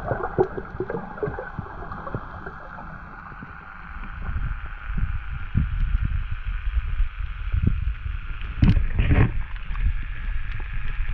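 Muffled underwater sound from a camera held below the surface: uneven low rumbling and sloshing of water against the housing over a steady high hiss. The rumbling gets heavier about four seconds in, and there are two louder whooshes about three-quarters of the way through.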